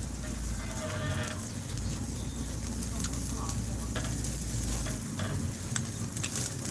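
Wind buffeting the microphone in a steady low rumble, with scattered faint crackles and clicks.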